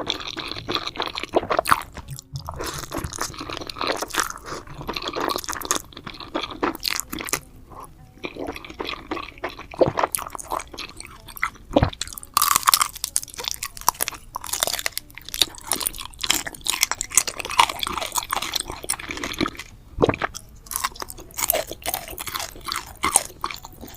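Close-miked chewing and crunching of spicy braised pork head, a dense run of irregular crunches and bites.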